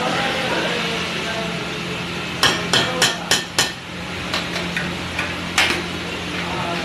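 A metal spatula or masher knocking on a large flat pav bhaji griddle (tawa): five quick clanks about four a second near the middle, a few lighter taps, then one more clank near the end, over a steady low hum.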